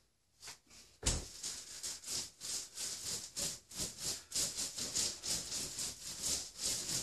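Paint roller on an extension pole rolling thinned all-purpose joint compound onto a textured drywall wall: a hissing rasp in quick repeated strokes, starting about a second in.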